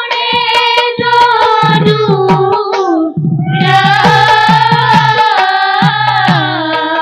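Dihanam, an Assamese devotional song, sung by women's voices in long, sliding held notes over a low rhythmic beat with sharp strikes. The singing breaks off for a moment about three seconds in, then comes back.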